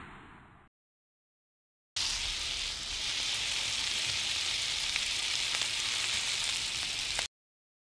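A sizzling sound effect: a steady hiss with a few faint crackles starts about two seconds in and cuts off abruptly near the end. At the very start, a swept hissing whoosh fades away.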